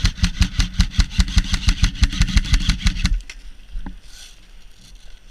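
KWA KM4 electric airsoft rifle firing a full-auto burst of about three seconds: rapid, evenly spaced shots over the buzz of the gearbox motor, then stopping abruptly.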